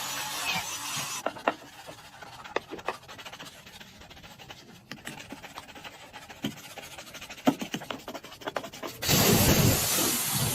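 A hissing cleaning jet cuts off about a second in. Then comes rubbing and scrubbing on a car surface with scattered clicks and taps. About nine seconds in, a loud hissing jet with a low rumble starts again.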